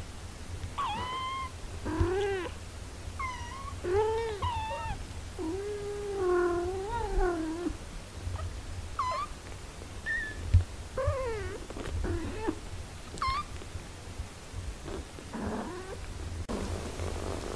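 Six-day-old kittens mewing while they nurse: about a dozen short, high, wavering cries, with one longer, lower cry near the middle.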